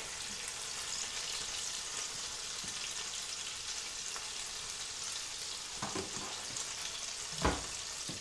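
Hamburger patties frying in a skillet: a steady sizzling hiss, with a couple of light knocks near the end.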